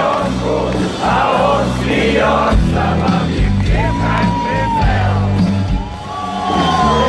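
Live rock band playing through a PA, with a heavy, steady bass line and a singer holding two long notes in the second half.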